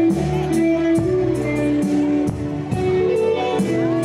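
Live pop band playing an instrumental passage: electric guitar and keyboard notes over bass guitar and a drum kit keeping a steady cymbal beat.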